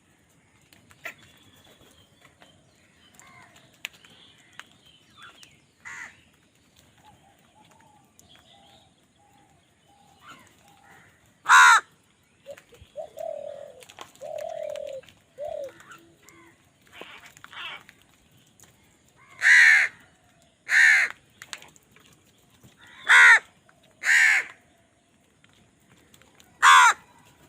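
Crows cawing: six loud, harsh caws at uneven intervals, mostly in the second half, with quieter, lower calls and faint chatter in between.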